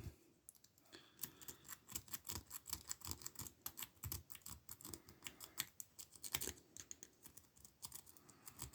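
Lock pick being raked or zipped through the keyway of a Burg 111/40 padlock, with quick, irregular light clicks and scrapes as it skips over the pin tumblers without opening the lock.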